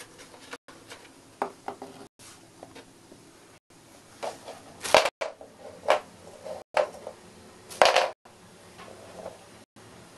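Light knocks and scrapes of a hamster dragging a bone-shaped dog biscuit out of a cardboard box and across a wooden floor, with two louder scraping rustles past the middle. The sound drops out briefly about every second and a half.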